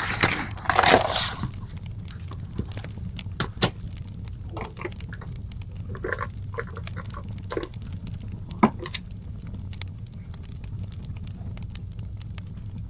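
Wood fire crackling: scattered sharp pops and snaps over a steady low hum. A brief rustling noise comes in the first second or so.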